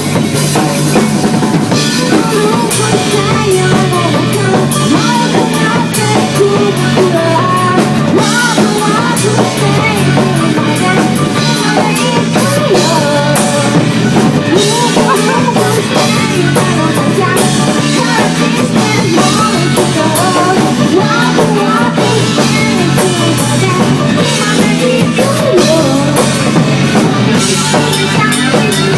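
Rock music with a steady drum-kit beat.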